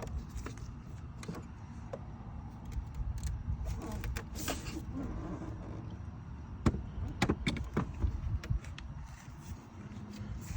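Plastic refrigerator dispenser trim and display board being handled and set back into place, giving scattered light clicks and taps over a low rumble.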